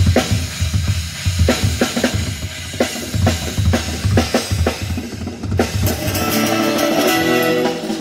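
Live acoustic drum kit playing a steady beat of kick drum and snare strikes. Near the end the drums drop out and a held pitched chord rings on.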